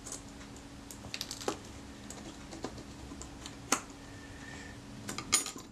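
Small metal parts of a Kodak Retina IIIc leaf shutter clicking and tapping as they are handled and the cam plate is fitted back in place: scattered light clicks, the sharpest about four seconds in and a quick cluster near the end, over a faint steady hum.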